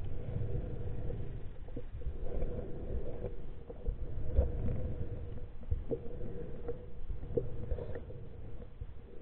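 Muffled underwater sound picked up through a camera's waterproof housing: a low rumble of moving river water, a faint steady hum, and scattered small clicks and knocks.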